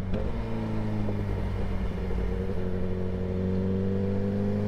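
Suzuki GSX-R1000's inline-four engine running steadily while the motorcycle is ridden, its pitch creeping up slightly in the second half.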